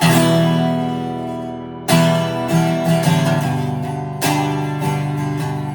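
Greco D-70 acoustic guitar: full chords strummed and left to ring, with fresh strums about two seconds in and again about four seconds in, and lighter single notes between them.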